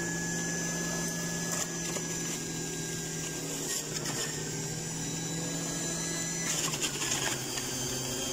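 Electric centrifugal juicer running, a steady motor whine with scattered rattles and clicks as fruit is pushed down the feed chute and shredded. The rattling is busiest a little before the end.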